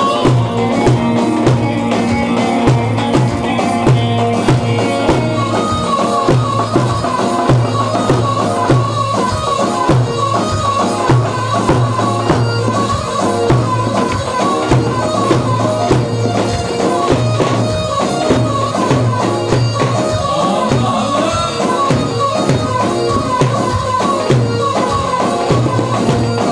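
Loud Turkish folk dance music for a halay line dance, with a steady driving beat and a short melody repeating over it.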